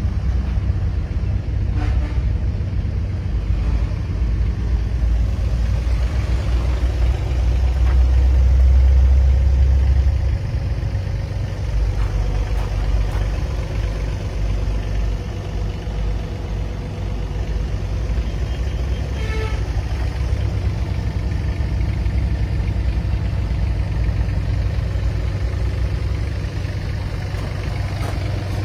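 Yanmar ViO30-5 mini excavator's diesel engine idling steadily, with a few seconds of louder low rumble about a third of the way in.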